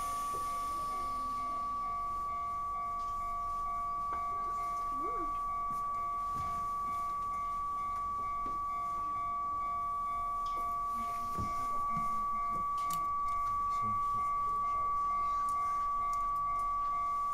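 Electronic warning alarm sounding continuously: a steady high tone with a lower, faintly pulsing tone beneath it, with a few faint knocks.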